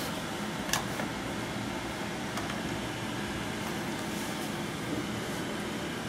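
Steady room hum and hiss, like a fan or air conditioning, with a sharp click about three quarters of a second in and a fainter one later.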